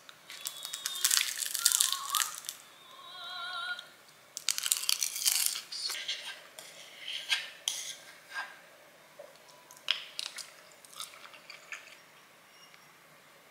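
Chopsticks and a spoon stirring and scraping in a stoneware bowl of rice topped with crumbled seasoned seaweed, giving crackly, crunchy clicking in two busy spells over the first few seconds. After that come scattered single clicks of utensils and dishes on the table.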